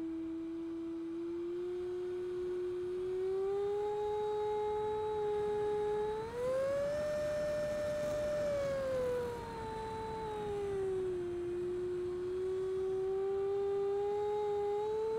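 Electric ducted fan of an 80 mm Freewing Avanti jet whining steadily in flight, its pitch following the throttle: it rises about six seconds in, holds high with a rush of air, falls back a few seconds later and starts climbing again near the end.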